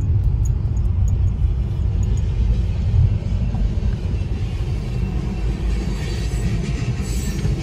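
Freight train cars rolling through a grade crossing, heard from inside a car: a steady low rumble of steel wheels on rail, muffled by the car's body.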